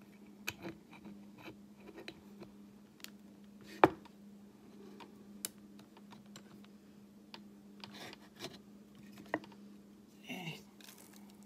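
Scattered light clicks and taps of small tools being handled, with one sharp knock about four seconds in, over a faint steady hum.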